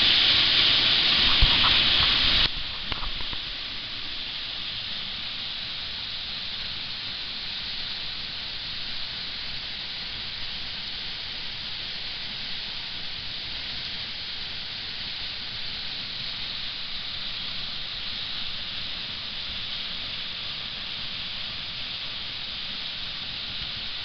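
Steady rushing of a large waterfall, with no break in it. It is louder for the first two and a half seconds, with a couple of small clicks, then drops suddenly to a lower, even level.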